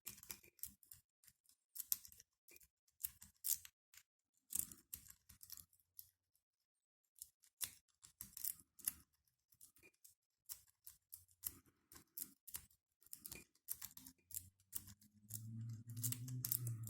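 A metal rake pick being rocked in the keyway of a Brinks 40mm padlock, making irregular sharp clicks and light scrapes against the pins, with a short pause midway.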